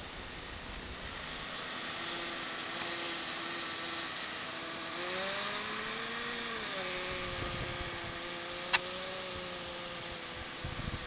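Small nitro glow engine of an RC Blizzard tracked vehicle running at a high, buzzing speed. Its pitch rises about five seconds in and drops back a second and a half later. There is one sharp click near the end.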